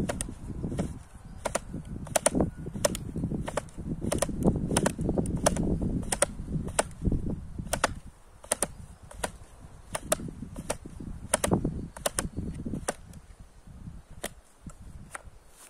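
Efco Load&Go automatic trimmer head ratcheting as its knob is turned by hand to wind new nylon line onto the spool: sharp clicks about two or three a second, thinning out near the end, over a low rumble of handling noise.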